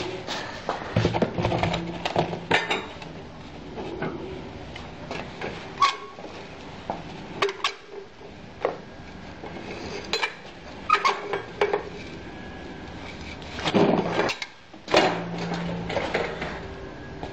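Irregular metal clinks and knocks from the steel mould frame and parts of a manual chalk-making machine being handled, with a few quick clusters of clatter.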